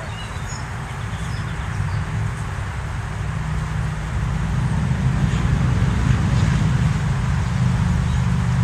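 Honey bees buzzing around an open hive: a steady low hum that slowly grows louder.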